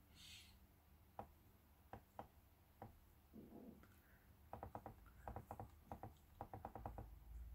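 Near silence with faint clicking from scrolling a document on a computer: a few scattered clicks, then a quicker run of clicks from about four and a half seconds in.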